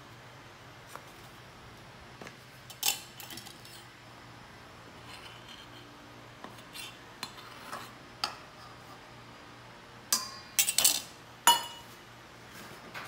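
Metal measuring cup clinking and knocking against a ceramic bowl and a stainless steel mixing bowl while flour is scooped, levelled and tipped out. Scattered light clinks, with one sharp knock about three seconds in and a run of louder knocks near the end.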